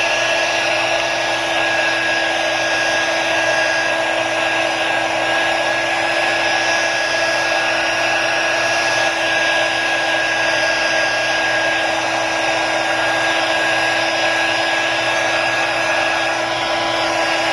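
Hot-air blower running steadily, an even rushing with a steady whine through it, heating the phone's LCD to loosen the adhesive underneath.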